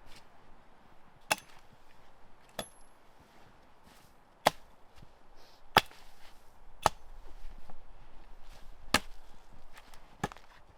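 Wood being chopped with an axe: about seven sharp, single strikes, roughly a second or so apart, likely firewood for a hot-tent stove.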